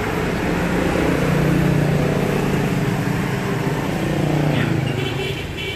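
A motor vehicle's engine passing by, swelling to its loudest about two seconds in and then fading away.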